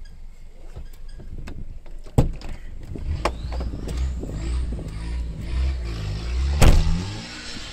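An off-road 4x4 engine driving past close by and revving up and down, with several sharp knocks; the loudest knock comes near the end.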